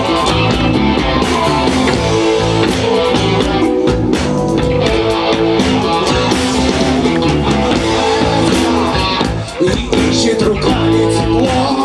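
Rock band playing live: electric guitars through Marshall amplifiers, with keyboards and a drum kit, a brief dip in loudness about nine and a half seconds in.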